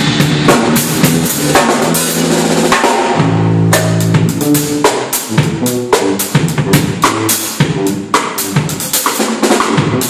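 Drum kit and electric bass guitar playing together, with rapid, dense drum strikes over held low bass notes. Just past three seconds the drums ease off briefly while a low bass note rings.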